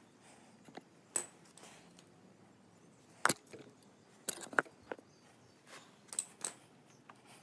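Hand tools and small metal parts clinking and knocking while being handled during engine work, as scattered sharp clicks: a few single ones and a quick cluster about four and a half seconds in.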